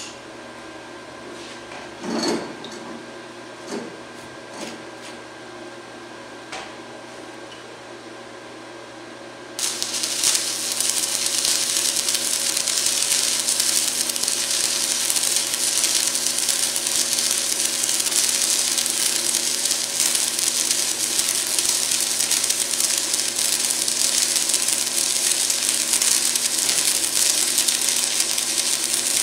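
A few light knocks over a steady shop hum, then about ten seconds in a stick-welding arc strikes and burns steadily to the end: the loud crackling hiss of a 7014 electrode laying a bead on 1/8-inch steel, run with the welder's current turned up for better wetting at the weld toes.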